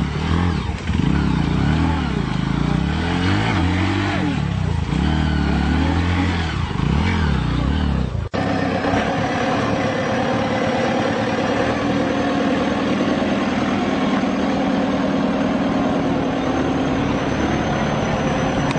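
Farm tractor engine revving up and down, its pitch rising and falling repeatedly; about eight seconds in the sound cuts abruptly to the engine running at a steadier speed.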